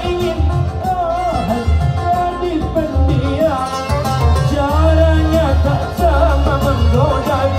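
A man singing a melismatic Middle Eastern-style melody while accompanying himself on an oud, over a deep, rhythmic low beat.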